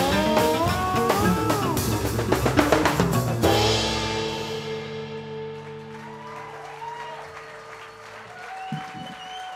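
Oud, lap steel, double bass and drum kit playing the loud final bars of a tune, with rising sliding notes over heavy drumming, then stopping together about three and a half seconds in. The last chord then rings on and slowly fades.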